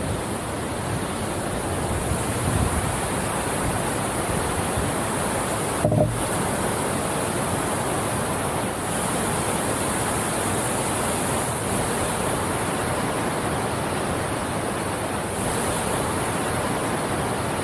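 Steady rush of moving water, even and unbroken throughout, with a single brief knock about six seconds in.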